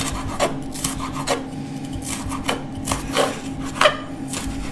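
Kitchen knife chopping and scraping spring onion on a chopping board, with irregular sharp strikes a fraction of a second to a second apart. A steady low hum runs underneath.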